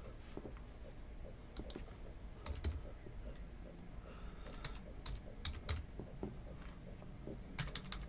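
Faint, irregular light clicks and taps, a few at a time, over a low steady room hum.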